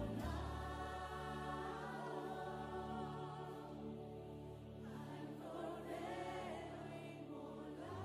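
A group of voices singing a slow, soft passage of a Spanish worship song in choir style, with held notes over a sustained low accompaniment.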